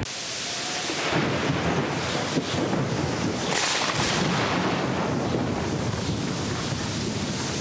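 Thunderstorm sound effect: a steady hiss of heavy rain with rumbling thunder.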